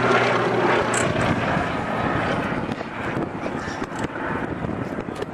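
Propeller engines of a Westland Lysander and a Hawker Sea Hurricane flying past together: the Lysander's Bristol Mercury radial and the Hurricane's Rolls-Royce Merlin V12, a steady drone that slowly fades as the pair move away.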